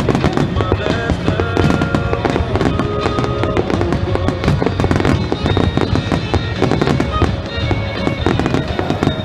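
Fireworks going off in a dense, continuous run of rapid crackling bangs, with music playing underneath.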